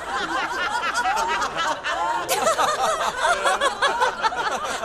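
Animated cartoon theatre audience laughing together, many voices at once, growing louder about halfway through.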